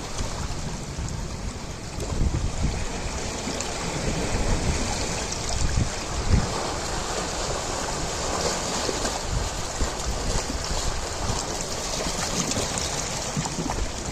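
Ocean surf washing in a continuous rush, with irregular low gusts of wind buffeting the microphone.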